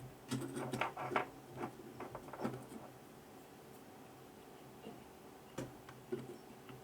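Small parts and tools being handled during work on the scooter dashboard: a quick run of light clicks and taps in the first two seconds or so, then a few single clicks, over a faint steady hum.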